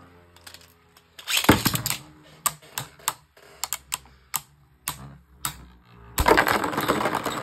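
Two Beyblade Burst spinning tops clashing in a plastic stadium. There is a low spinning hum, a loud clash over a second in, then scattered sharp clicks of contact, and a longer clatter near the end as both tops burst apart.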